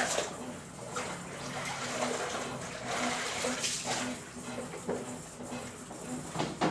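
Brastemp Ative BWG11 top-loading washing machine agitating a load of sheets and towels in rinse water. The water sloshes in repeated surges about once a second over a low motor hum that cuts in and out.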